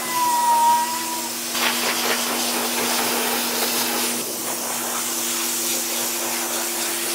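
Pet grooming dryer blowing air through its hose nozzle: a steady hiss over a motor hum, part of which drops out about four seconds in. At the start a cat gives one drawn-out meow.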